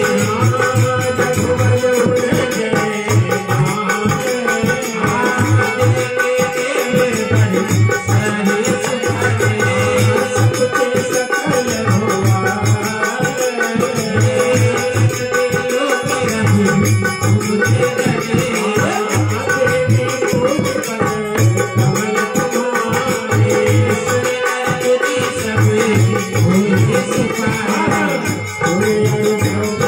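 Harmonium playing steady held chords and melody, with a rattling hand percussion and a repeating low drum beat keeping rhythm.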